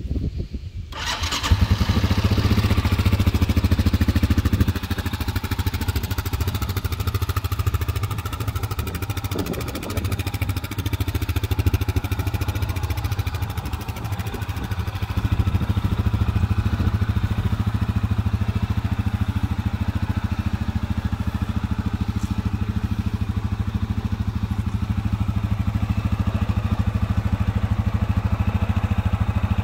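Yamaha Grizzly 700 ATV's single-cylinder four-stroke engine starting, catching about a second and a half in, then idling steadily. The idle drops slightly about five seconds in and picks up again about halfway through.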